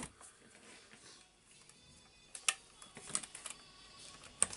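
A few light clicks and knocks of a cordless drill and small screws being handled on a wooden workbench, between bursts of driving screws; near the end the drill bit is set into a screw head.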